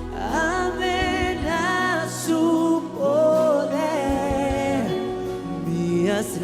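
Spanish-language Christian worship song: a voice sings a gliding, wavering melodic line without clear words over steady instrumental accompaniment.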